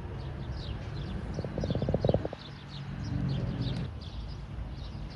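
Small birds chirping repeatedly in short falling notes over a steady low rumble. A short, rapid rattle is the loudest sound, about a second and a half in.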